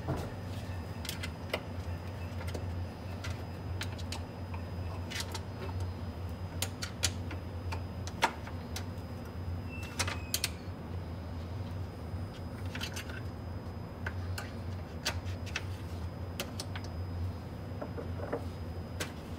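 Irregular clicks and rattles of plastic hold-down clamps and their screws being loosened and slid along aluminium T-tracks on a CNC wasteboard, over a steady low hum.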